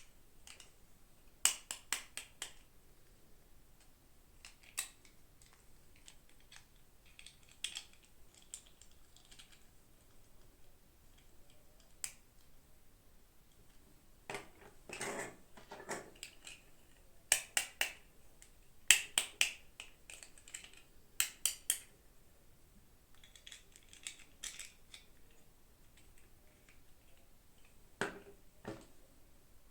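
Sharp plastic clicks and taps from handling and opening miniature toy packaging, coming in short clusters of two to four clicks with quiet pauses between.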